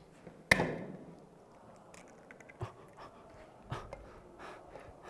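A sharp knock about half a second in, then a few light clicks and taps: a raw egg cracked on the rim of a glass mixing bowl and pulled apart over it.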